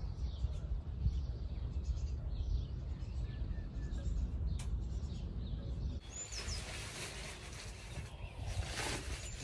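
Garden ambience: a low rumble of wind on the microphone for about six seconds, then, after a sudden change, a steady hiss with a few short, high bird chirps.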